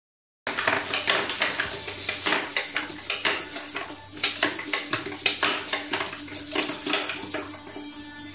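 Small humanoid servo robot moving: rapid, irregular clicking and clattering of its plastic parts and feet on the board, over a faint steady servo hum.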